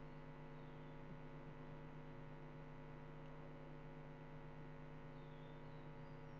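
Faint, steady electrical mains hum with a stack of even overtones, picked up by the recording setup in a pause between speech.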